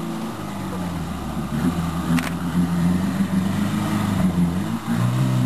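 Suzuki Samurai 4x4's engine running under load, its revs dipping and rising several times.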